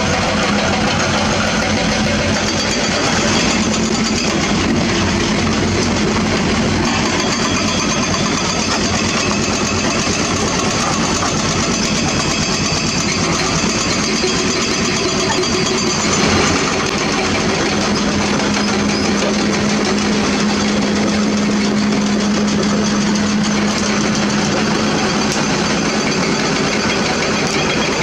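Hitachi Zaxis 200 hydraulic excavator's diesel engine and hydraulics running steadily while the machine works. A steady low hum comes in a little past halfway.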